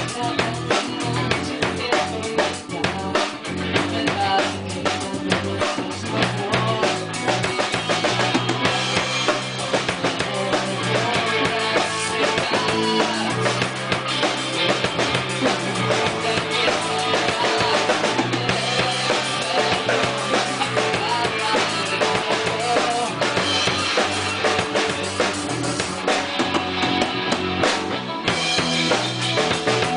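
Rock band playing an instrumental passage, the drum kit to the fore with bass drum and snare hits over the band, picked up by room microphones.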